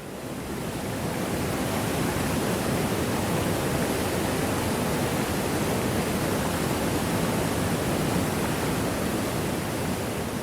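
Moore Cove Falls pouring down, a steady, even rush of falling water.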